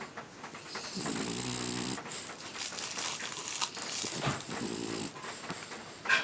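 French bulldog snoring in its sleep: two long, rasping snores about three seconds apart, typical of the breed's short, flat-faced airway. A brief sharp click near the end.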